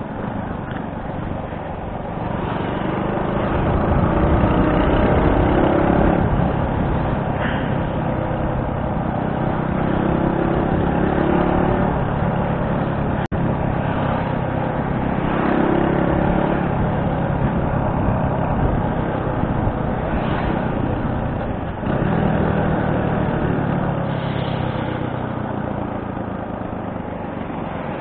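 Motorcycle engine under way, its pitch rising and falling several times as the rider accelerates and eases off in traffic, over a steady rush of wind and road noise. The sound drops out for an instant about halfway through.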